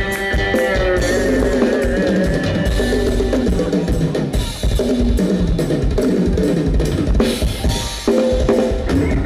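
Live Isan mor lam band music with the drum kit to the fore: steady kick drum and sharp snare hits under a wavering melody line. The drums break briefly near the end, then come back in.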